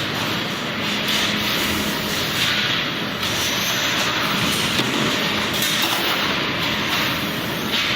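Steady mechanical din of running machinery: a continuous rushing noise over a faint low hum.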